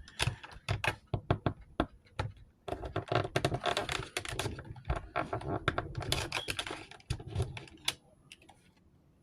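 Plastic action figure and its display stand being fumbled together by hand: a run of quick plastic clicks, taps and rattles, densest in the middle and dying away near the end, as the figure is forced onto the stand peg.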